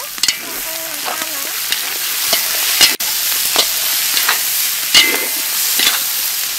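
Raw shrimp sizzling in hot oil in a large wok with garlic and chili, the sizzle building as they go in. A metal spatula scrapes and clinks against the wok about once a second as they are stir-fried.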